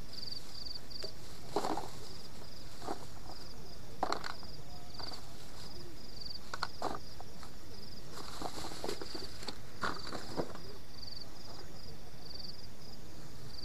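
Night insects chirping in a steady string of short high pulses, two or three a second, with scattered rustles and light knocks from gear and plastic bags being handled close by.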